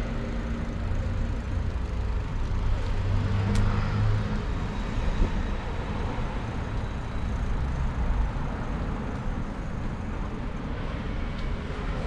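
City road traffic: a steady rumble of vehicles, with a low engine hum strongest over the first four seconds that then eases off.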